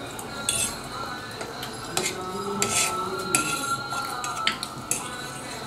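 A fork clinking and scraping on a plate while eating, in a series of light, scattered clicks.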